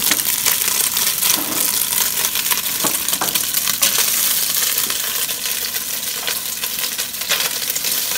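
Smoked bacon sizzling and crackling in hot oil in a cast-iron Dutch oven, with frequent sharp pops, as its fat renders out over high heat.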